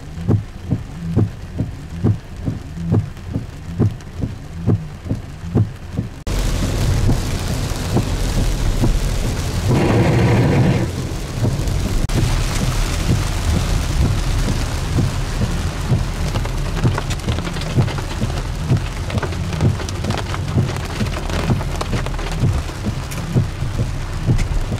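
Heavy rain on a car driving through flooded streets, a dense steady rush of rain and water noise. For the first six seconds only a rhythmic low thumping, about two to three beats a second, is heard; the rain noise then cuts in suddenly. A brief pitched tone sounds about ten seconds in.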